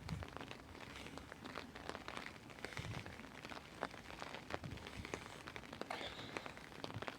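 Heavy rain falling: a soft steady hiss with many irregular sharp taps of raindrops striking close by.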